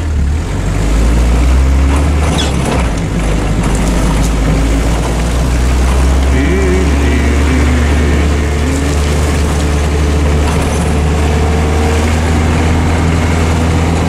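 Land Rover engine running steadily as it drives over a field, a deep drone that picks up about a second in.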